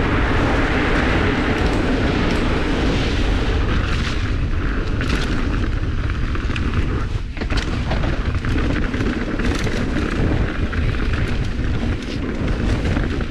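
Mountain bike ridden fast down a dirt trail: wind buffeting the bike-mounted camera's microphone with a steady low rumble from the tyres on the dirt. From about four seconds in, the bike clatters and rattles over bumps.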